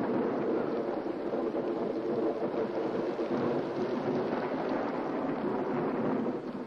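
A steady, even rushing noise with a low rumble, without pause or sharp events.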